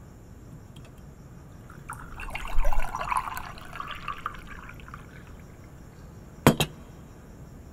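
Tea poured from a porcelain teapot into a china cup, splashing for about three seconds, followed a second later by two quick clinks of china.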